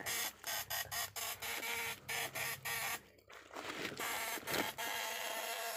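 Quick, irregular crackling and rustling as hands rummage through a wet nylon fish net holding small fish, twigs and dry leaves, with a short pause about three seconds in.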